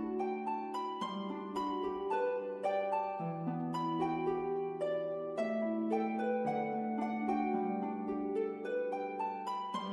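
Background instrumental music: a slow, gentle melody of notes with sharp starts over lower held notes.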